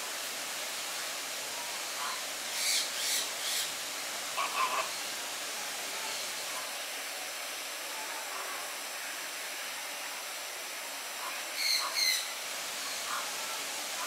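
Birds give a few short calls over a steady hiss: a quick run of three about three seconds in, two more just after, and a pair near the end.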